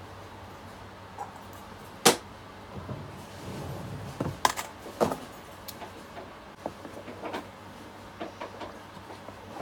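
Objects being handled and set down on a table: a few sharp knocks and clatters, the loudest about two seconds in and two more about halfway, followed by lighter ticks and rustles.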